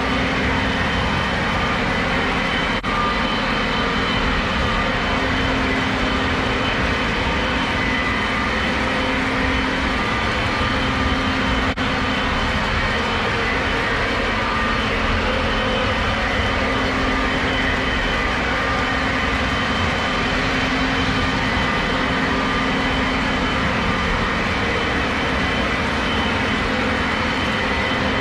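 Several Lionel O gauge model trains running at once on the layout: a steady blend of electric motor hum and metal wheels rolling on the track, with a few faint steady tones.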